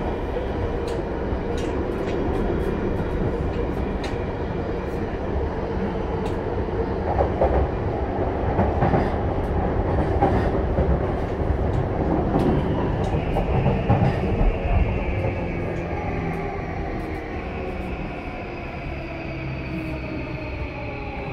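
Cabin running noise of a JR East E235 series motor car with a Mitsubishi full-SiC VVVF inverter: steady wheel-and-rail rumble with scattered sharp wheel clicks. From a little past halfway, the inverter and traction motor whine falls in pitch and the noise eases as the train brakes for its station stop.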